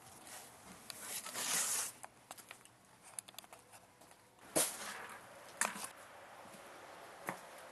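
Rustling and handling noises with a few sharp knocks, as a plastic bag of parts and papers is set down on top of a small portable generator.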